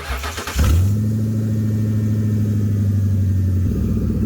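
A 2006 Ford Crown Victoria's 4.6-litre V8, powered from a portable jump starter pack with no battery in the car, cranks briefly on the starter, catches under a second in, and settles into a steady idle.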